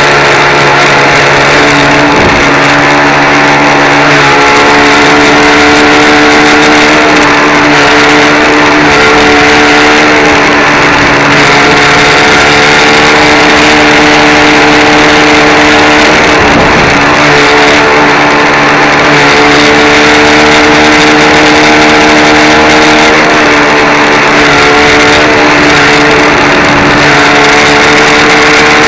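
Brushless electric motor of a radio-controlled speedboat whining at a steady high pitch under hard running, with water rushing, heard loud and close through a camera mounted on board. The pitch dips briefly about halfway through as the speed eases, then holds steady again.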